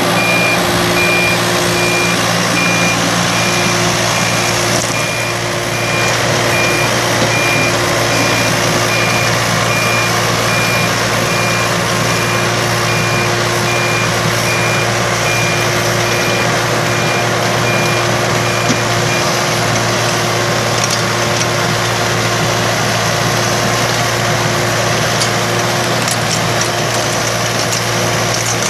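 Yanmar ViO35-5 mini excavator's three-cylinder diesel engine running steadily while its travel alarm repeats a high beep as the machine tracks. The beeping stops about two-thirds of the way through, and the engine runs on as the excavator digs, with a few sharp clicks near the end.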